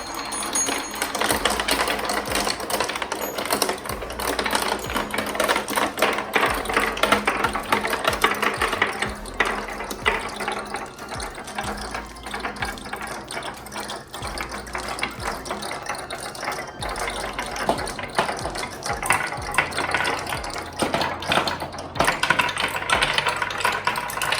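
Many glass marbles rolling and clattering down a marble run track, a dense continuous rattle of small clicks and knocks.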